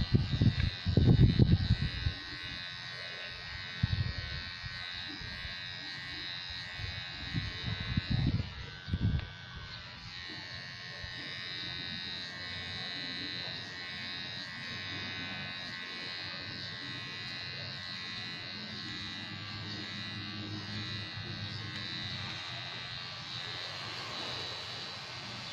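Electric hair clipper buzzing steadily as it cuts through hair. A few brief low rumbles break in, the loudest about a second in and again around eight seconds.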